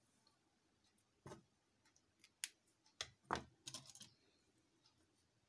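Near silence with a few faint, scattered clicks and taps from drawing instruments (compass, pencil, plastic ruler) being set down and picked up on the paper.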